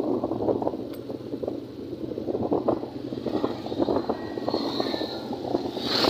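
Wind buffeting the microphone of a moving road vehicle in irregular gusts, over a steady low engine hum.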